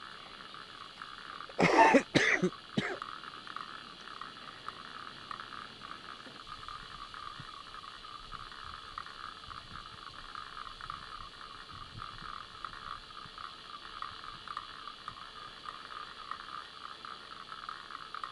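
A person coughs a few times about two seconds in, over a steady background hiss.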